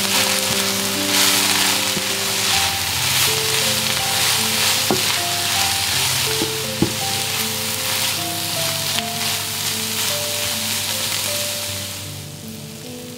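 Shredded cabbage, mushrooms and parsley sizzling in a frying pan as a wooden spatula stirs them, with a couple of sharp knocks about five and seven seconds in. The sizzling dies down near the end. Soft background music plays underneath.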